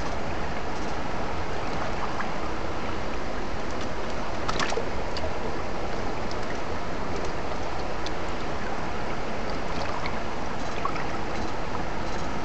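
Stream water running over rocks, a steady rushing, with a few faint clicks, the clearest about four and a half seconds in.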